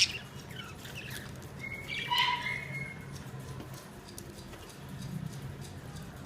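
Pet budgerigars chirping: a few short calls, the loudest about two seconds in, with faint scattered clicks and taps around them.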